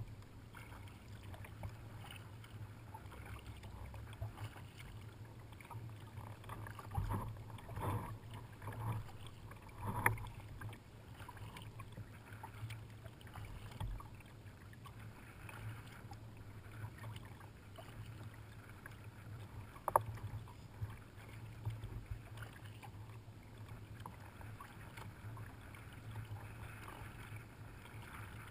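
Kayak paddles dipping and splashing in calm water, with occasional knocks, including a sharp one about two-thirds of the way through, over a steady low hum.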